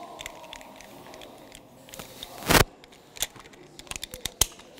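Karabiners and a Petzl I'D descender being handled as the descender is fitted onto the rope: scattered metallic clicks and rattles, with one loud clack about two and a half seconds in.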